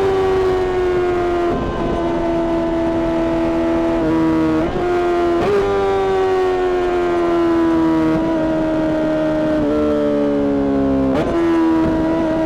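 Honda CBR600RR inline-four engine through a Mivv exhaust, running at high revs with a high, steady note. The pitch sinks slowly as the bike slows on the throttle-off, then jumps back up about six times as it is shifted down a gear at a time.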